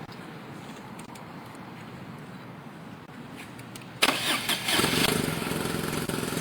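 Motorcycle engine started in neutral about four seconds in, catching abruptly and settling into a steady idle.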